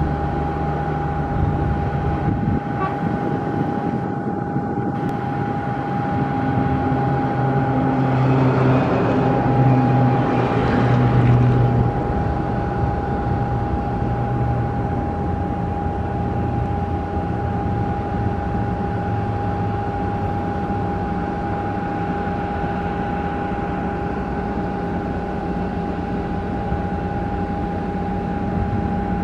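Airbus A320neo jet airliner on final approach, its engines heard as a steady low rumble with a constant high tone, growing a little louder about a third of the way in.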